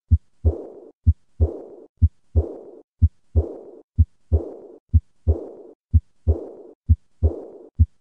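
Heart sounds of aortic regurgitation: a pair of low thuds (S1 and S2) about once a second, the second of each pair followed by a murmur that fades away during diastole. This early diastolic decrescendo murmur is the sign of blood leaking back through the aortic valve.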